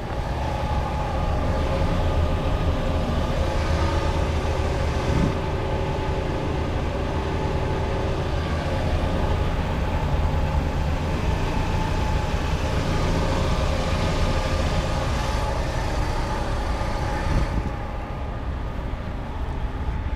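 A car engine idling: a steady low hum with a few even, unchanging tones above it.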